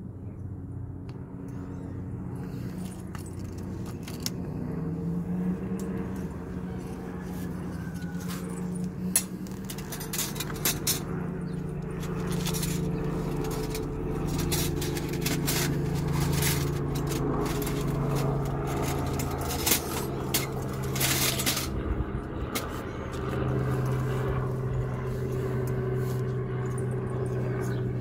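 A steady low mechanical hum, with scattered sharp clicks and light crackles as a long utility lighter is worked and thin sticks catch fire in a small clay stove; the clicks cluster in the middle of the stretch.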